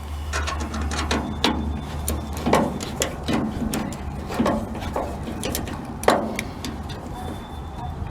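Irregular metal clicks and taps of hand tools and small hardware being handled and fitted, over a steady low hum.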